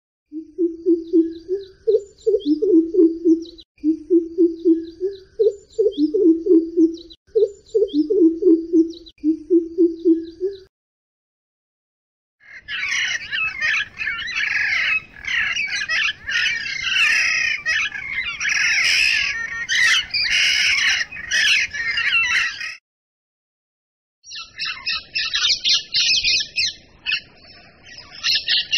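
Three recordings of bird calls played one after another. First comes a low-pitched call repeated in short phrases for about ten seconds, with faint high chirps above it. After a short silence comes dense high chattering of many birds, then after another short silence, rapid high chirping.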